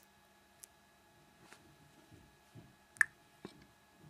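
Fingertip taps and handling of a Kodak PlayTouch pocket camcorder: faint rubbing with a few short, sharp clicks, the loudest about three seconds in.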